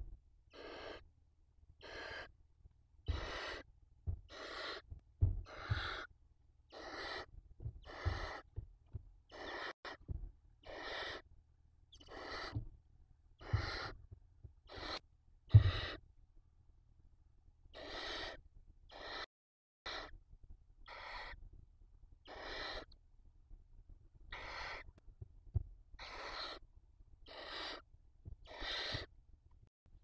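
Barn owl chicks giving hissing begging calls, one rasping hiss roughly every second. Low thumps from the birds shuffling on the nest-box floor, the loudest about halfway through.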